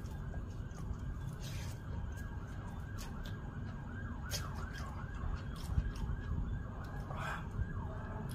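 An emergency vehicle's siren in rapid yelp mode: a quick rising-and-falling wail repeating about three times a second. Scattered sharp clicks sound over it.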